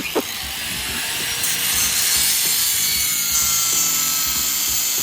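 A power tool cutting through a metal trailer tongue lock: a steady, high, hissing grind whose pitch sinks slightly as the cut goes on.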